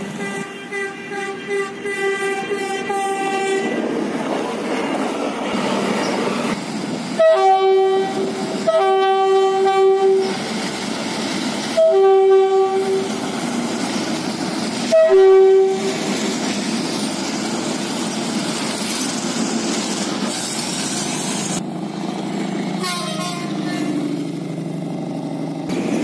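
Train horns: one long blast, then four shorter blasts that each open briefly on a higher note before dropping to a lower one. The steady noise of a passing train runs between and after them.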